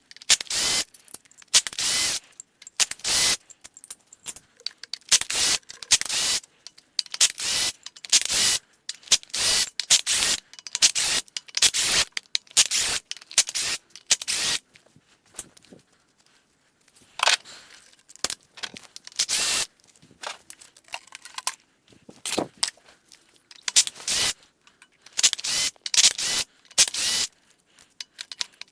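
Hand-tool work on an engine being torn down: a rapid, irregular series of short scraping and metallic rattling noises with brief pauses between them.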